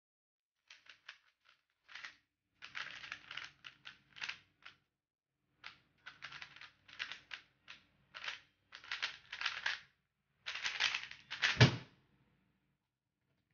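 A plastic 3x3 speed cube being turned fast during a timed solve: quick bursts of clicking, clacking turns with brief pauses between them. Near the end comes a single loud thump as both hands slap down on a Stackmat timer to stop it.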